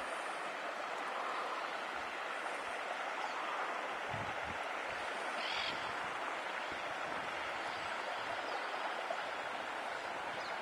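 Steady outdoor background hiss with one short bird call about five and a half seconds in.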